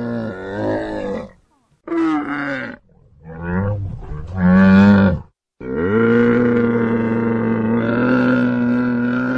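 Camel calling: four short, wavering calls, then one long call held at an even pitch for about four seconds.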